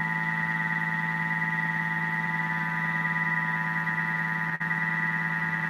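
Thermomix motor running steadily at whipping speed, turning its whisk through a honey-and-gelatin mixture as it beats into marshmallow fluff. It makes a constant low hum with a higher whine over it, broken by a split-second dip about four and a half seconds in.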